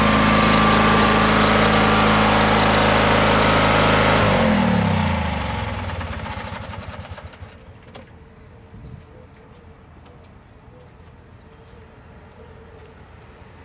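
Small gasoline engine of a skid-mounted Waterous fire pump running steadily, then shut off about four seconds in, its pitch falling as it spins down to a stop. Afterwards a faint steady hum remains, with a single click a few seconds later.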